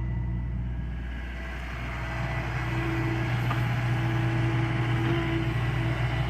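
John Deere excavator's diesel engine running steadily, growing louder about two seconds in, with a higher tone coming and going over it.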